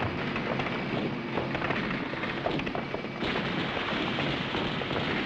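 Battle sound effects from a war film soundtrack: a dense, steady rumble with scattered gunshots and blasts. The mix changes abruptly about three seconds in.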